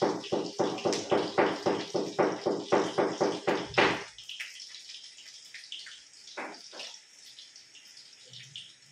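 Rapid, even knocking from food preparation on the kitchen counter, about five strokes a second, which stops about four seconds in and is followed by a few faint clicks.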